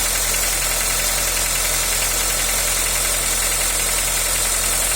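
Honda Accord 2.0 four-cylinder engine idling steadily with a knock that set in when some unit switched on.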